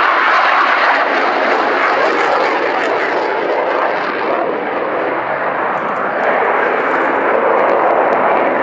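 Eurofighter Typhoon's twin jet engines at high power during a display pass: a loud, steady jet roar that eases a little about four seconds in and swells again about six seconds in.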